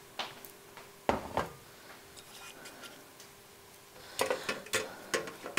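Dishes knocking on a counter, the loudest knock about a second in. From about four seconds in, a peeled boiled potato is grated on a metal hand grater into a glass bowl in quick repeated scraping strokes.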